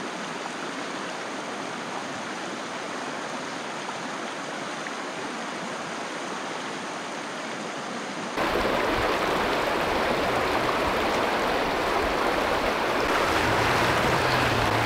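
Steady rush of the Salmon River flowing over its rocky riffles. About eight seconds in it jumps louder and fuller, the sound of faster, broken whitewater.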